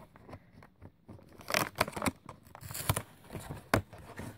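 Cardboard door of an advent calendar being torn open and a lip cream in a plastic sleeve pulled out: a few sharp tearing and crinkling sounds starting about one and a half seconds in, with a sharp click near the end.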